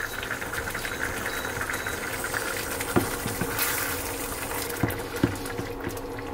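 Coconut-milk prawn curry bubbling in a stainless steel pan while a spatula stirs through the thick sauce, with a few light taps of the spatula against the pan about three and five seconds in.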